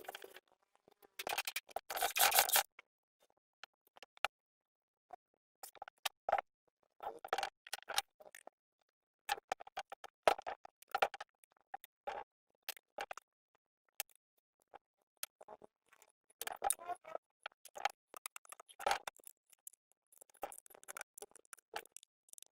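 Scattered clicks and scrapes of hand tools and metal engine parts being handled during generator repair work, in short clusters with pauses between.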